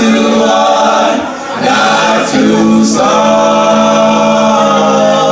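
Male vocal group singing long held notes in close harmony, the chord breaking off briefly and coming back in twice.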